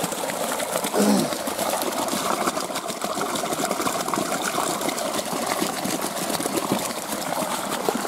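Small forest stream pouring over a rock into a shallow pool, a steady splashing gush.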